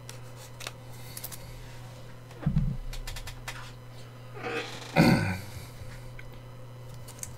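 A clear plastic card sleeve crinkling and scraping as a trading card is slid into it by hand, with faint scattered clicks and two soft bumps, about 2.5 and 5 seconds in.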